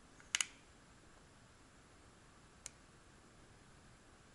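Small sharp clicks from hand work with a soldering gun and wire on metal battery tabs: a quick double click, then a single lighter click about two seconds later, against quiet room tone.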